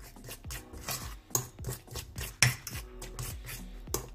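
Metal spoon scraping and clinking against a stainless steel bowl while stirring thick semolina-and-egg dumpling batter, in quick even strokes several times a second. One louder clink comes about halfway through.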